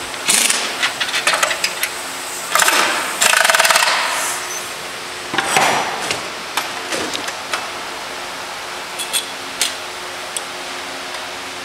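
Pneumatic impact wrench rattling in several short bursts as it runs bolts down on a motorcycle frame, the longest about three to four seconds in. After that come scattered sharp metal clicks and clinks, over a steady low hum.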